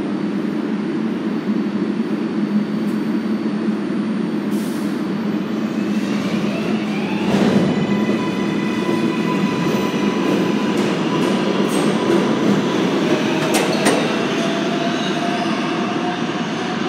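R142A/R188 subway train on the 7 line pulling out of an underground station over a steady rumble of wheels and motors. From about six seconds in, a chord of rising whines climbs as it accelerates, and there are a couple of sharp knocks.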